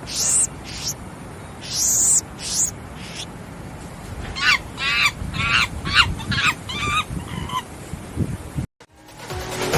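Monkey calls: a few high, shrill squeals in the first three seconds, then a fast run of about eight short calls from about four to seven and a half seconds in, over a steady background hiss. The recording cuts off near the end.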